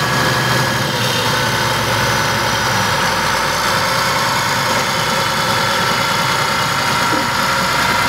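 Caterpillar D6H crawler dozer's six-cylinder diesel engine running steadily as the dozer drives slowly forward.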